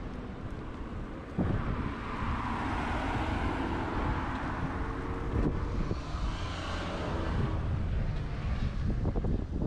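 A car passing on the road, its tyre and engine noise swelling and then fading, with wind buffeting the microphone as a low rumble throughout.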